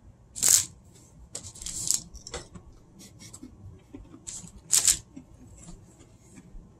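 Short rustles and knocks of objects being handled: a few brief, scattered noises, the loudest about half a second in and just before five seconds in.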